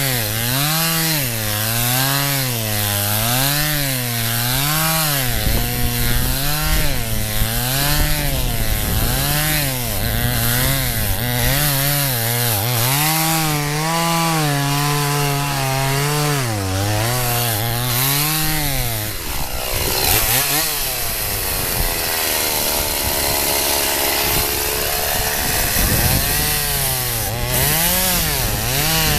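Two-stroke chainsaw cutting through ice, its engine speed rising and falling about once a second as the chain bites and frees in the cut. About two-thirds of the way through the engine note drops and wavers before picking up again.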